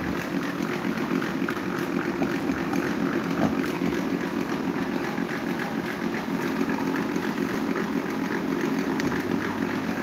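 Several small plastic electric fans running together: a steady whirring hum with rushing air and light irregular ticking.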